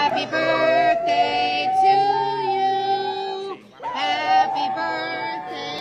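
Pit bull-type dog howling in long, held notes, with a short break about three and a half seconds in before it howls again.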